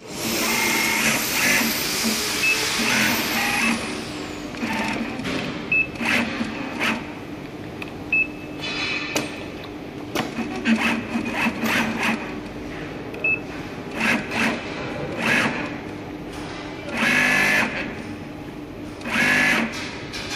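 JK-560A industrial sleeve-attaching sewing machine stitching in short runs of about half a second to a second and a half, stopping and starting as the sleeve is fed, over a steady hum.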